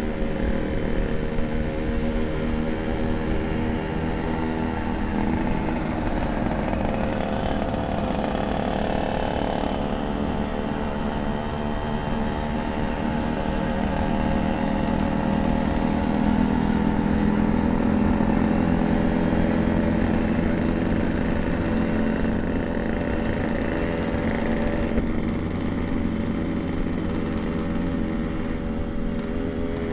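Yamaha RX-King 135cc two-stroke motorcycle engine running steadily while riding, its pitch holding fairly even and its level swelling slightly around the middle.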